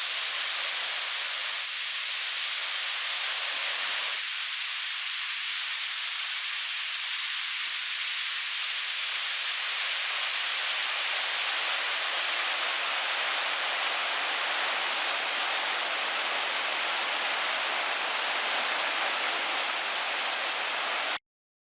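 Steady rushing water, as of a waterfall or cascade: a continuous hiss that changes slightly about four seconds in and cuts off abruptly near the end.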